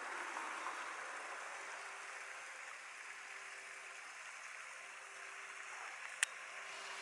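Steady rushing hiss of the flowing channel water beside the seawall, with a faint steady hum underneath. A single sharp click about six seconds in.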